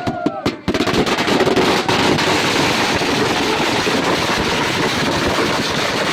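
A long string of thousands of firecrackers going off: a few separate cracks, then about a second in a dense, unbroken rattle of rapid bangs that keeps up steadily.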